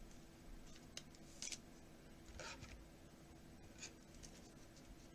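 Faint rustles and light ticks of trading cards being handled, a few times, over a faint steady hum.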